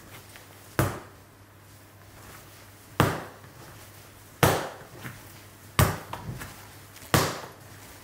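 Soft, sticky bread dough slapped down onto a wooden worktop and folded over by hand: five sharp slaps, most about a second and a half apart, some followed by a smaller knock.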